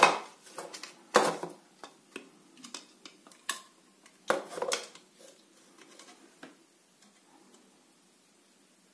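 Plastic parts of a SVAVO V-370 automatic soap dispenser clicking and knocking as they are handled and fitted together: a cap pressed onto the pump inside the housing. A few sharp clicks, the loudest about a second in and again around four and a half seconds.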